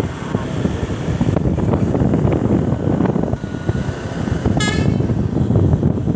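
Steady bus engine and road noise, with one short, high horn toot about four and a half seconds in.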